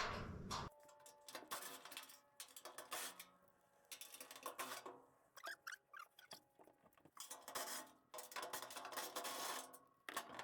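Faint, scattered metallic clinks and scrapes of hand tools working on the socket cap bolts under a truck fender, with a few brief metal rings.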